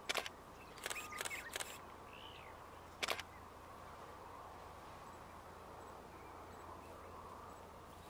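Quiet bush ambience broken by a few short, sharp clicks: one at the start, a quick cluster about a second in, and another about three seconds in. A short rising-and-falling bird call sounds in between.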